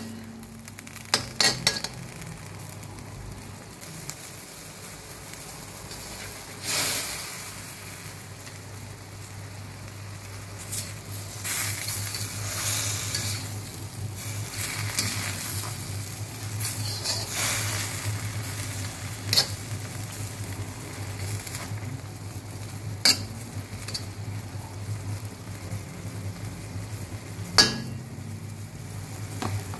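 Metal slotted spatula stirring and tossing bean sprouts and tofu in a steel wok, the food sizzling in its sauce, with a few sharp clanks of the spatula against the wok over a low steady hum.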